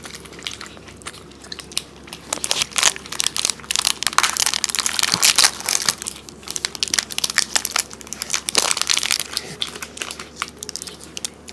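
Plastic Cadbury Fuse chocolate bar wrappers being torn open and crinkled by hand, a dense irregular crackling that thins out near the end.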